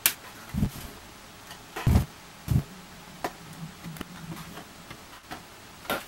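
Plastic case of an Apple Time Capsule being pried open with a plastic pry tool: sharp clicks of the base's clips releasing and a few dull knocks of the unit being handled, the loudest about two seconds in.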